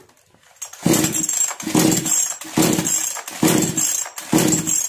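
Recoil starter of a Kisan Kraft two-stroke chainsaw pulled about five times in quick succession, a little under a second apart. Each pull whirs the rope and turns the engine over without it catching: the saw will not start after a carburettor H-screw adjustment.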